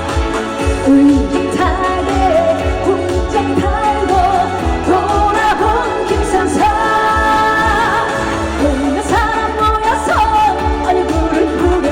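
Korean trot song with singing over a steady kick-drum beat and backing band track.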